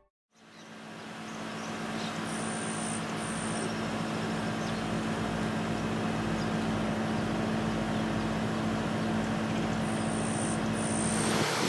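A steady motor drone fades in, a constant low hum over an even rushing noise.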